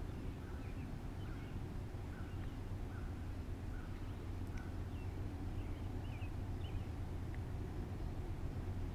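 Birds chirping in short, repeated notes, several a second, over a steady low rumble.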